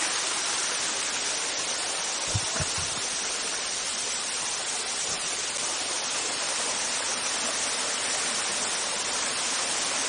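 Steady rush of a small waterfall and stream running over rocks, with a few low thumps about two and a half seconds in.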